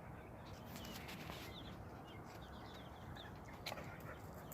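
Faint short chirps of birds scattered over a quiet outdoor background, with one faint click near the end.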